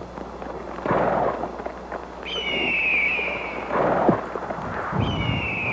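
Two dull, echoing blasts about three seconds apart. A long, high whistle falls slowly in pitch between them and sounds again near the end, over a low rumble.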